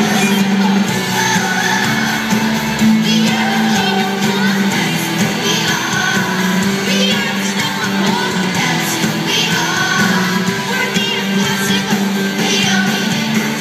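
Live amplified band music with a children's choir singing along, heard through the PA from the seats of a large arena.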